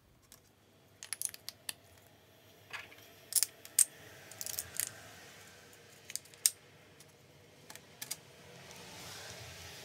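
Small parts of a Makita 6222D 9.6 V drill driver clicking and clinking as they are handled and fitted by hand during reassembly. There are a string of sharp, irregular clicks and a short scraping rustle about halfway through.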